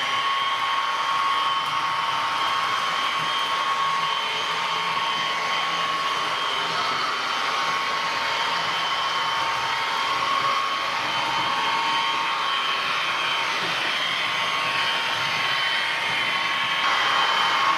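H0 model V200 diesel locomotive running on the layout: the sound decoder's diesel engine sound and the drive's whirring, steady throughout, with a constant high tone over it.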